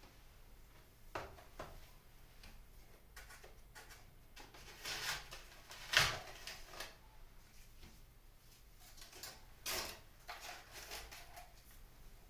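Dried pampas grass and flower stems rustling and crackling in irregular bursts as they are handled and set into the arrangement, with a sharper knock about six seconds in.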